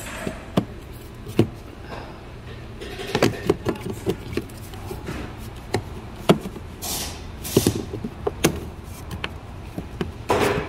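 Plastic cowl panel and rubber hood seal of a Toyota RAV4 being pressed back into place by hand: a string of scattered clicks and knocks of plastic trim seating, with a short rustle near the end.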